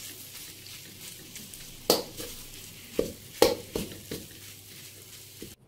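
Metal spatula stirring and scraping thick suji and besan halwa around a metal wok, with a few sharp clinks of the spatula against the pan about two, three and three and a half seconds in.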